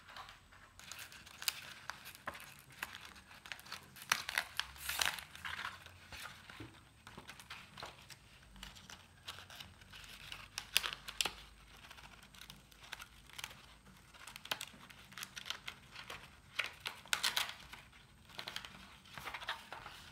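Clear plastic face-shield sheet and plastic headband crinkling and clicking as they are handled, in irregular crackles and taps.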